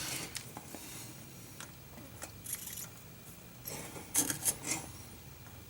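Light scratchy rubbing and handling sounds at a workbench, with a louder cluster of quick scrubbing strokes about four seconds in, over a faint steady low hum.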